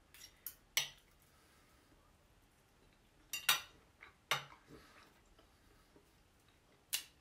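Metal knife and fork clinking and scraping against a plate while cutting meat: a few short sharp clinks, three close together at the start, two about three and a half seconds in, one a second later and one near the end.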